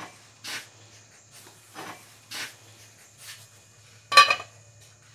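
Gloved hands handling a copper pipe and a steel pipe piece: a series of short rubbing and scraping sounds, with a louder metal knock about four seconds in as the steel piece is set onto the copper pipe.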